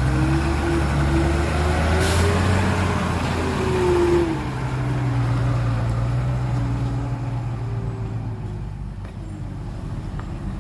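Heavy diesel truck engine running, its pitch rising and falling, with a short hiss about two seconds in. The engine eases off about four seconds in and fades.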